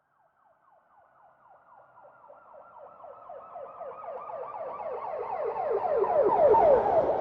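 Police car siren in a fast yelp, rapid repeated falling sweeps, swelling from silence to loud as the vehicle approaches. Near the end the vehicle's low road rumble joins in as it draws close.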